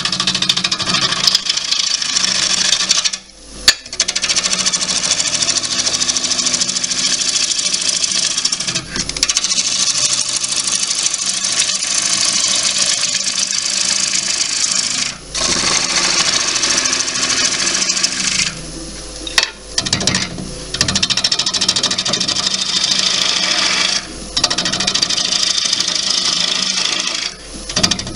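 Gouge cutting a spinning bowl blank of wet cherry wood on a wood lathe: a steady scraping hiss of the cut while rough-turning, broken by several short pauses as the tool comes off the wood, the longest about two-thirds of the way through.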